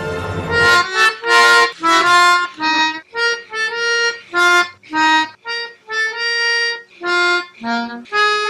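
Instrumental melody of short, separate notes, about two or three a second.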